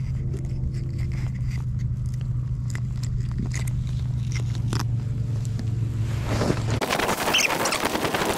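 Small clicks and ticks of a plastic hook remover working a swallowed hook out of a yellow perch's mouth, over a steady low hum. About six and a half seconds in the hum stops and a loud rushing noise of wind buffeting the microphone takes over.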